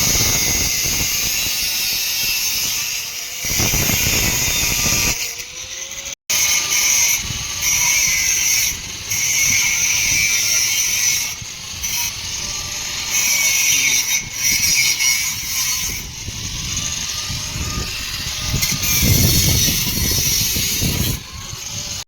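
Mild-steel fabrication work: a loud, steady, high hiss of metal being worked, made of several short clips joined with a hard cut about six seconds in.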